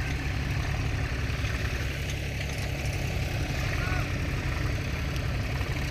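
Diesel tractor engine running steadily as it hauls a trolley heaped with sand over loose sand.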